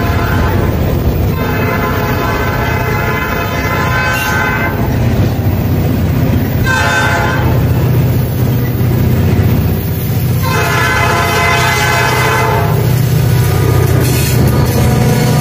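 Norfolk Southern diesel locomotive horn blowing for a grade crossing: a long blast, a short one about halfway in, and a final long one, over the steady low rumble of freight cars rolling past.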